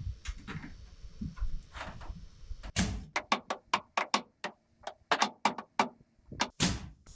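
Hammer driving nails into wood: a quick run of sharp blows, about five a second, in the second half, after a few scattered knocks.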